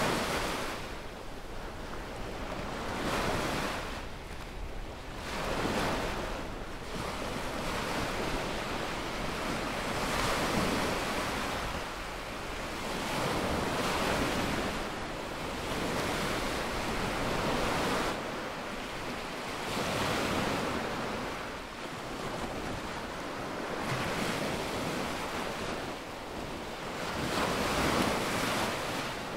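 Small waves breaking on a sandy shore and washing up the beach, the surf noise swelling and easing every two to three seconds.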